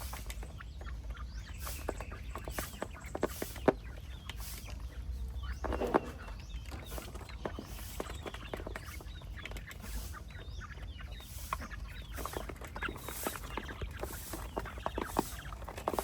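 Chickens clucking, with many small sharp clicks and taps scattered among the calls.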